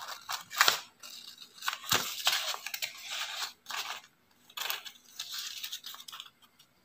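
Scissors cutting through a sheet of paper along a drawn sewing-pattern outline: an irregular run of snips with paper rustling between them.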